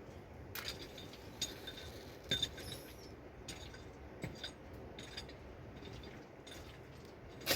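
Scattered light clinks and taps of glassware and dishes being handled, with one sharper clink at the very end.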